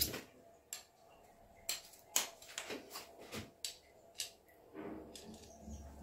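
A series of light, separate clicks and clinks from a screwdriver being handled and set on the centre screw of a washing machine's plastic pulsator.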